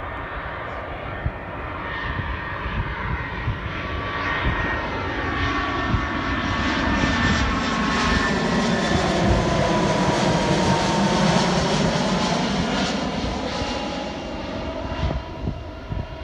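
Twin-engine jet airliner on final approach with its landing gear down, passing low overhead. The engine sound swells to its loudest about ten seconds in, with whining tones that slide down in pitch as it goes by, then fades.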